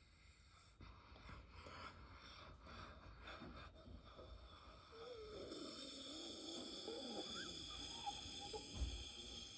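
2011 Ducane heat pump during shutdown: a faint wavering, gliding sound that grows louder, with a steady high whine joining about halfway through.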